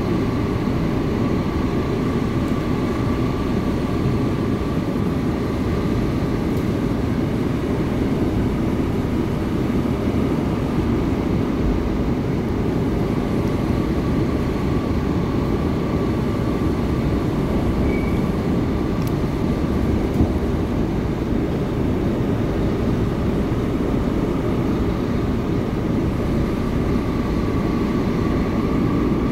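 Seoul Subway Line 8 electric train running steadily between stations, heard from inside the passenger car: a constant rumble of wheels on the rails with a faint steady high tone above it.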